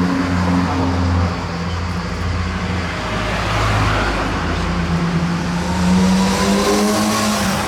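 A motor vehicle engine running with a low, steady hum; near the end a fainter whine rises in pitch.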